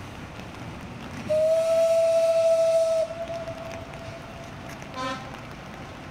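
Steam locomotive whistle blowing one long steady blast of about two seconds, starting about a second in, its tone lingering faintly afterwards, then a short toot near the end. The train's running noise sounds underneath.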